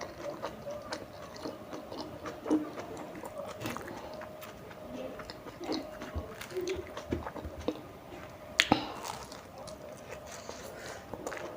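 Close-miked chewing and biting of tandoori momos: soft wet mouth sounds and small irregular clicks, with a sharp double click about three-quarters of the way through.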